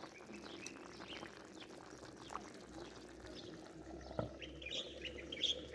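Small birds chirping faintly and intermittently, with a cluster of chirps near the end.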